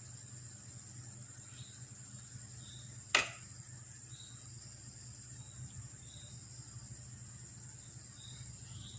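Quiet background with a steady low hum, a thin steady high tone and faint, short high chirps repeating every second or so. A single sharp click or tap about three seconds in, as from a utensil handled while stuffing masala into pumpkin pieces.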